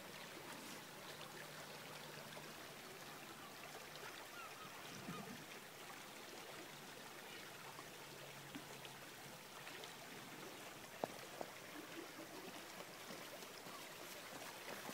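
Faint, even outdoor background hiss with a few tiny scattered chirp-like marks, a faint low hum twice, and a single sharp click about eleven seconds in.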